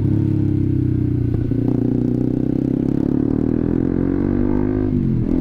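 Honda CBR150R's single-cylinder engine running through a replica SC Project aftermarket exhaust while riding, with a loud, full exhaust note. The pitch climbs gently, then drops sharply about five seconds in.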